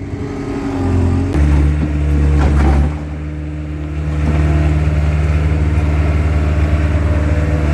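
Skid steer engine running, revving up about a second and a half in and holding steady at higher speed while it works the bucket, scooping broken concrete blocks.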